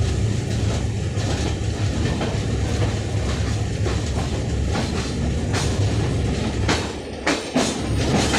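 Two passenger trains crossing on adjacent tracks, heard from the moving train: a steady rumble of wheels on rail and the rush of the other train's coaches going by close alongside. The wheels clack over the rail joints, growing sharper in the last few seconds as the end of the passing train goes by.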